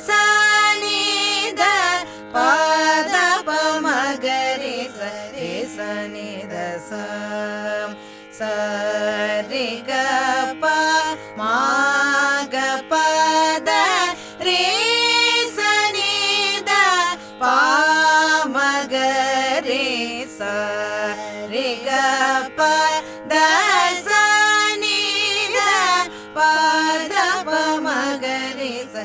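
Female Carnatic vocal singing the swaras (sa ri ga pa da) of a swarajathi in raga Bilahari, Adi talam, with gliding ornamented notes over a steady drone.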